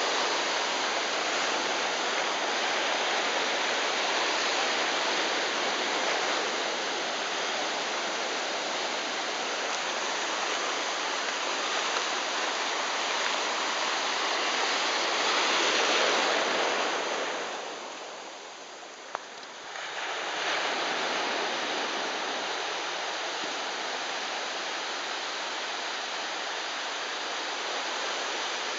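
Shallow sea surf washing in and out over sand at the water's edge: a steady rush of water that swells louder a little past the middle, then drops away for about two seconds before returning.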